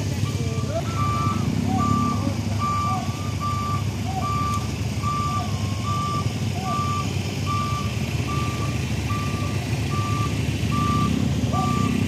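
A truck's reversing alarm beeping: a short high beep repeating evenly a little faster than once a second, over the steady low rumble of a diesel truck engine running.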